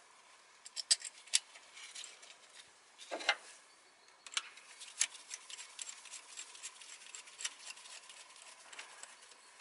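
Hand ratchet clicking in short irregular runs as it tightens the bolt that holds a new ignition coil down in the cylinder head, with the odd tap of metal tools.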